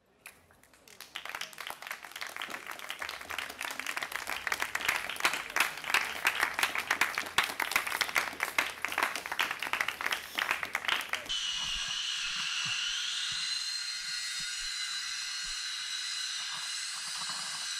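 Applause from a small audience, many hands clapping, swelling over about ten seconds. It then cuts off abruptly into a steady hiss with a faint whine that slowly rises in pitch.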